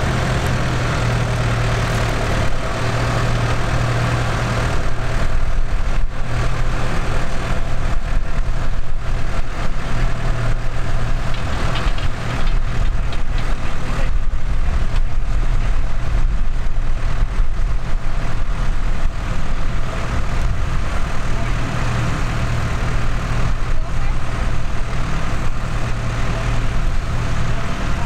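A tractor's diesel engine running: steady at first, then louder from about four seconds in as it pulls a mounted plough through the soil.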